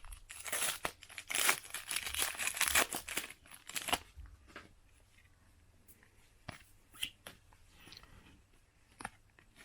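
Panini Adrenalyn XL card pack being torn open, its wrapper rustling and crinkling in a quick run of tearing sounds for about four seconds. After that come only a few faint ticks and rustles as the cards are handled.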